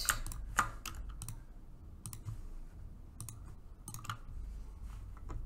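Scattered, irregular single clicks of a computer mouse and keyboard, about a dozen over a few seconds.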